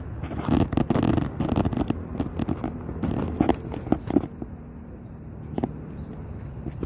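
Maserati exhaust popping and crackling in quick irregular bursts over the engine's running note; the pops thin out after about four seconds, leaving a steady idle with one more pop.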